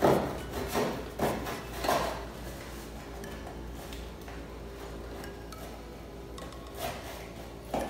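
Packing tape on a cardboard box being cut and scraped open by hand, with a few short sharp scrapes and knocks in the first two seconds, a quieter stretch, and two more strokes near the end.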